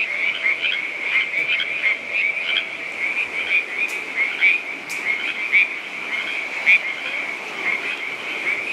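A night chorus of frogs: many overlapping short, high calls in a continuous trill.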